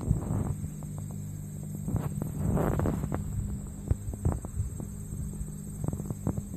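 A steady low hum, with scattered clicks and a brief rustle about two and a half seconds in.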